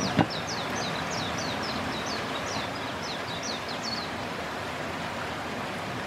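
Steady rush of a mountain stream. Over it, a bird gives a quick run of short, high, down-slurred notes, about three a second, for roughly the first four seconds. There is a single soft knock just after the start.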